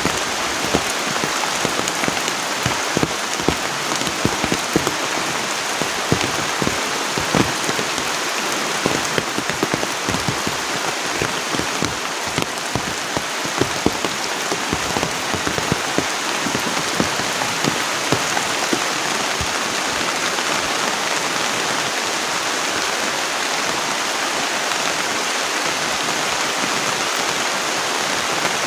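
Heavy rain falling steadily on the hut: an even hiss with many sharp individual drop hits, which are thickest in the first half.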